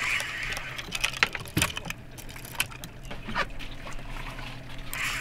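Rod and spinning reel being worked against a hooked fish: scattered clicks and knocks of handling and the reel, with a short hissing buzz at the start and again near the end.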